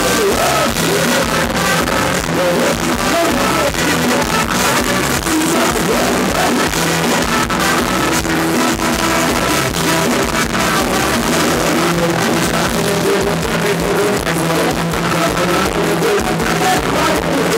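Live band playing Thai ramwong dance music on stage, with a drum kit keeping a steady beat under sustained instrumental lines.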